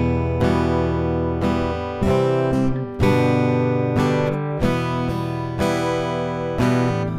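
Steel-string acoustic guitar playing chords, struck about twice a second and left to ring, moving through the song's E minor, C and G chords.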